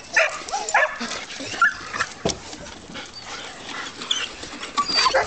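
Poodles whining and yelping, crying for their turn to swim; the whines come thickest in the first second, with a few high thin ones later.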